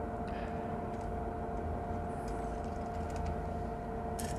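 Steady mechanical hum with a low rumble and a faint two-tone whine, with a few faint ticks.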